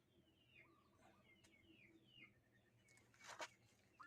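Faint, repeated high chirps from birds, each sliding downward in pitch, about two a second, with a brief rustle a little past three seconds in.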